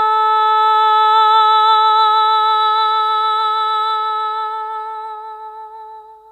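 A single long sung note held by a voice, steady in pitch with a slight vibrato, fading away near the end.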